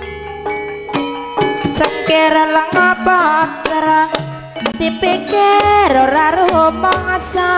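Javanese gamelan playing tayub dance music: kendang hand-drum strokes and ringing bronze metallophones and kettle gongs, with a deep gong hum near the start and again about six seconds in. A wavering, high vocal melody sings over it.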